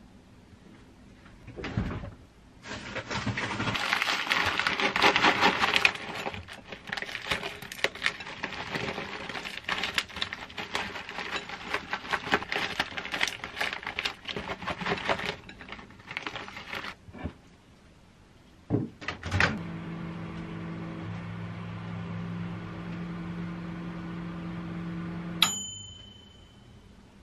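A plastic bag of shredded cheese crinkling and rustling as the cheese is shaken out over a bowl, for about twelve seconds. Then two knocks, and a microwave oven runs with a steady hum for about six seconds, ending in a single high beep as it stops.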